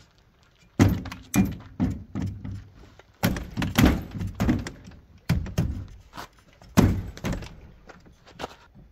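Irregular thunks and knocks of someone handling gear at the back of a pickup truck with a camper shell, about a dozen hits starting about a second in, some with a short ring.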